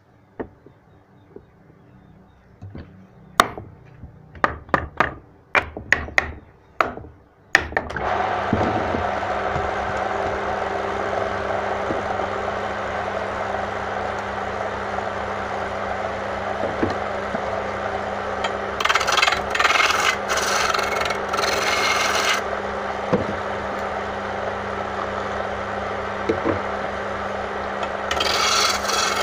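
A few sharp knocks. Then, about eight seconds in, a wood lathe starts and runs steadily with a low motor hum. A hand turning tool cuts into the spinning wooden blank with a rasping scrape for about three seconds midway and again near the end.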